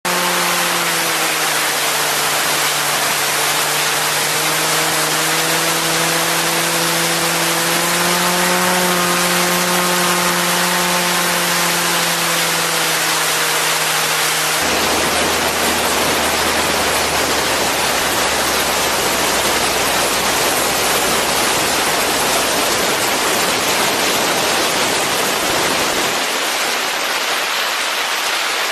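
An Aviat Husky A-1C's four-cylinder engine and propeller, heard under a heavy rush of wind on an outside-mounted camera, the engine tone wavering through the approach. About halfway through, the tone drops abruptly to a low hum as power comes back for the landing on skis. The rush goes on and its low end fades near the end.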